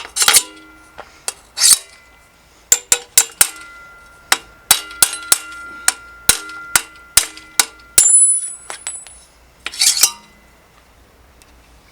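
A run of sharp, irregular metallic clicks and knocks, some leaving a brief ringing tone, from tools and bicycle parts being handled during work on the bike. The clicking stops after about 10 seconds.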